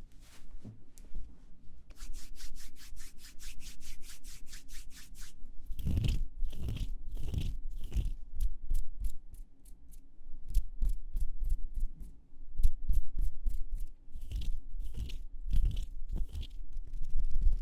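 Close-miked ASMR mouth sounds. First comes a fast, even run of crisp clicks for about three seconds. Then slower, irregular wet clicks and crackles follow, some with a soft thump of breath on the microphone.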